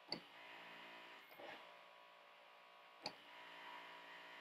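Hydraulic pump running with a faint steady hum while the HTQ hydraulic torque wrench is cycled, with three sharp clicks about every second and a half. The wrench has stalled on the fastener and the pump is being engaged a few more times to make sure it is fully torqued.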